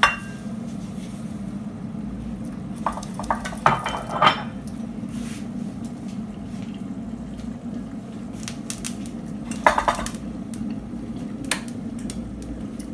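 Glass bowl and dishes clinking against each other a few times, over a steady low hum in the kitchen.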